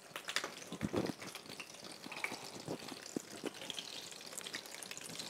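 Hot oil sizzling with scattered crackles as a tuna-and-egg brick pastry fries in a pan.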